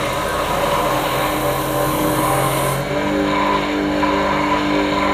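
Bench polishing motor running with a drill bit in its chuck, boring strap holes through a rubber flip-flop sole: a steady motor hum with a rough hissing scrape from the bit cutting the rubber, which stops about three seconds in while the motor keeps running.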